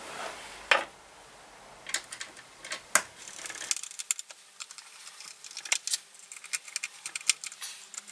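Scattered light clicks and taps of gloved hands handling an NVR switch box and tucking its cable into place, starting about two seconds in.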